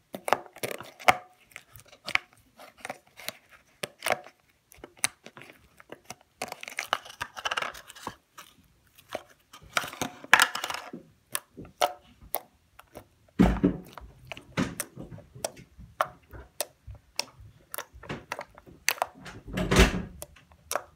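Pink slime being squeezed, poked and stretched by hand, making many small wet clicks and pops. Two louder, deeper squelches come about two-thirds of the way in and near the end.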